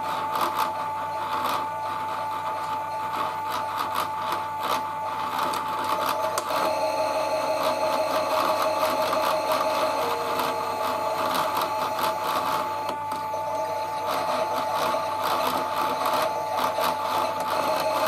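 Toy Miele W1 washing machine's small electric motor turning the drum in a wash, a steady whine over a buzzing rattle as the machine vibrates. About six seconds in the motor's note shifts and a second tone joins.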